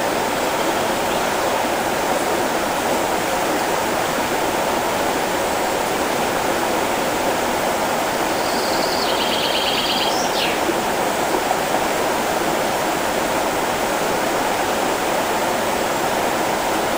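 The Glatt river rushing over shallow riffles, a steady, unbroken roar of running water. A brief high trill sounds about halfway through.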